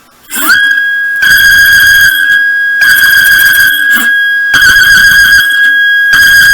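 A DIY CNC mill's spindle spins up with a rising whine that settles into a steady high whine. About every second and a half a harsh cutting noise, lasting under a second, comes in over it as the cutter passes through steel.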